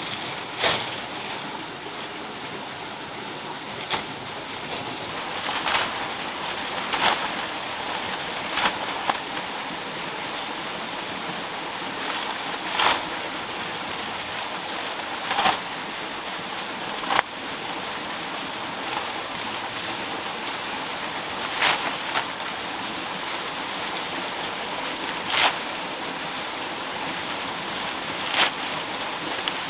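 A steady rushing noise like running water, with a short dry rustle or scrape every two to four seconds. In the later part these come from dry palm-leaf thatch being pulled and handled.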